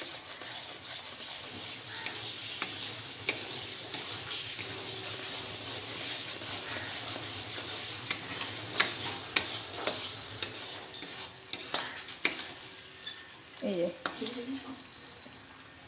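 Sugar syrup with tamarind water bubbling and sizzling in a metal kadai, stirred with a metal spoon that clicks and scrapes against the pan; the syrup is boiling down and thickening. The bubbling and stirring thin out and grow quieter in the last few seconds.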